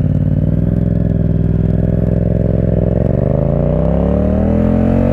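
Yamaha MT-07's parallel-twin engine through an Akrapovic 2-into-1 carbon exhaust with the baffle removed, heard from on the bike while riding. It holds a steady note for a couple of seconds, then climbs in pitch as the bike accelerates.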